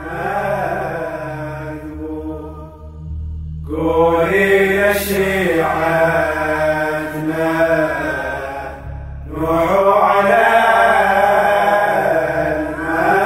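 A male voice chanting a slow, melismatic Shia lament (latmiya) in long wavering phrases over a steady low drone, with short breaths about three and nine seconds in.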